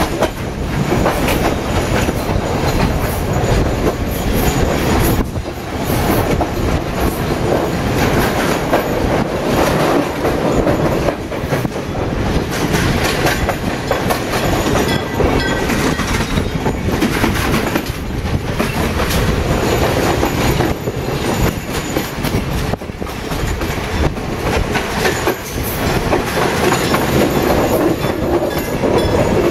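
Passenger train running along the line, heard from on board through an open window: steady rolling rumble with wheels clacking irregularly over the rail joints.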